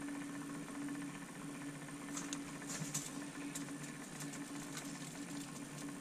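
Small electric motor of a tumbler cup turner humming steadily as it spins the tumbler, with a few faint light ticks partway through.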